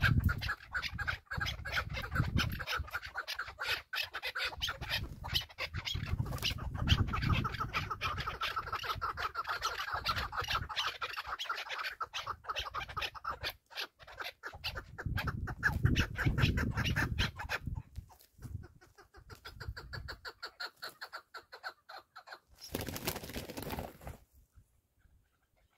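Chukar partridges calling: a fast, rhythmic run of clucking notes that thins out after about eighteen seconds, with bursts of low rumble underneath. A short burst of noise comes near the end.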